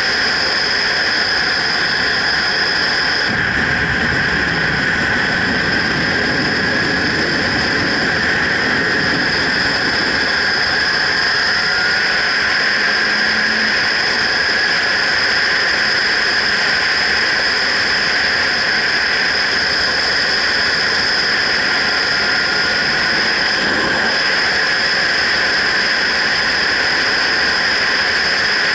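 Steady wind rush and road noise on a helmet-mounted action camera's microphone while a motorcycle rides at speed, with the bike's engine underneath. Heavier low buffeting comes in about three seconds in and lasts several seconds.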